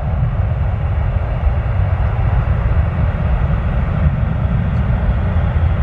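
The four jet engines of an Airbus A380 running at high thrust on the take-off roll: a steady, deep rumble.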